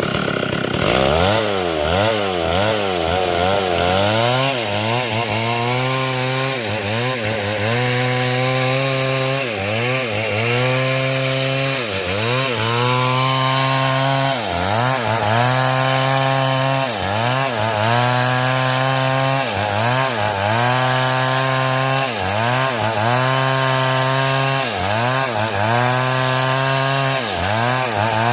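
Two-stroke chainsaw cutting through hard coconut wood. Its engine pitch dips and recovers over and over as the chain loads up in the cut, about once a second.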